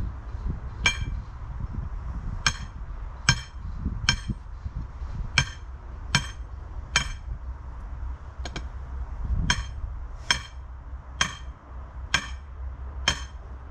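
Sledgehammer striking a metal stake to drive it into the ground: about a dozen sharp, ringing metallic clangs, roughly one a second, with a brief gap in the middle.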